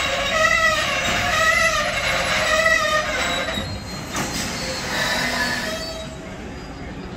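Hupac intermodal container wagons' wheels and brakes squealing as the freight train slows to a stop: a high squeal that wavers up and down about once a second, then fades out about three and a half seconds in. A single knock comes just after four seconds.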